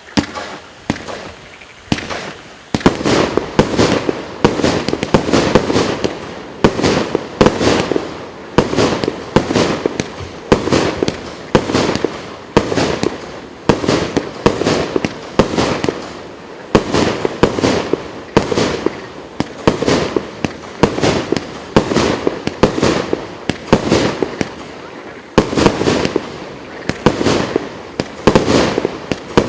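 Consumer fireworks cake, the COLOURED WORLD GWM6121 multi-shot battery, firing shot after shot at about one to two a second, each with a sharp report and a crackling tail. It starts within the first second and keeps firing without a break.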